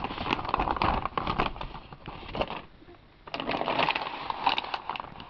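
Anti-static shielding bag crinkling and crackling in irregular bursts as a computer motherboard is slid out of it, with a short pause about halfway.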